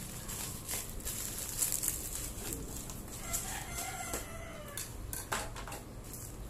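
A rooster crowing in the background: one call lasting about a second and a half, starting about three seconds in. Around it, plastic wrapping and a cardboard box crinkle and tap as they are handled.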